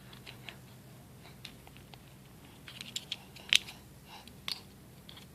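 Scattered small plastic clicks and snaps from a fidget cube being handled and pried at, with a short cluster a little after halfway and the sharpest click about three and a half seconds in.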